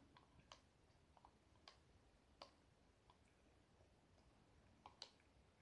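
Faint, scattered clicks of eating yogurt with a plastic spoon from a plastic cup, a handful of separate ticks over a near-silent background.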